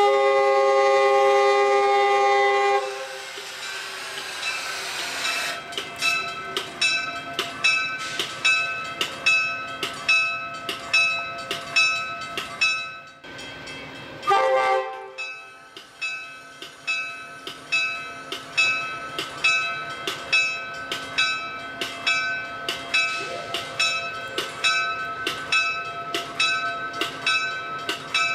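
Amtrak train's multi-chime air horn blowing a long blast that stops about three seconds in, then a bell ringing steadily at a little over one stroke a second as the train comes by, with a short horn toot about halfway through.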